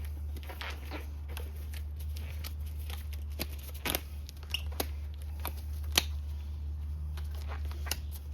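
Scattered clicks and short rustling, scraping handling noises from brake parts and tools being worked by hand, with the sharpest click about six seconds in, over a steady low hum.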